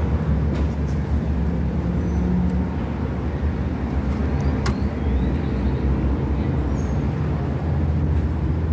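Steady low engine rumble, with a single sharp click about halfway through.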